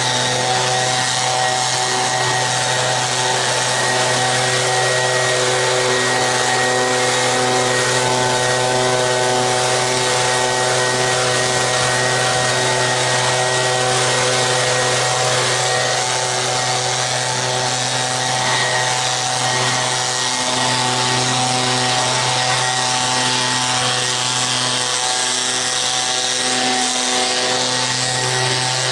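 Handheld leaf blower running steadily, blowing leaves off a lawn: a constant motor hum over the rush of air, wavering slightly as the blower is swung.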